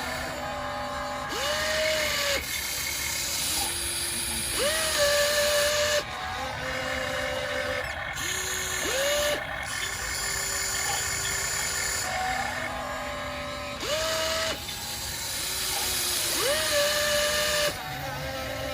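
Small electric motors and the hydraulic pump of an RC hydraulic excavator whining as it works. Each whine rises quickly in pitch and then holds, again and again, over a steady hiss.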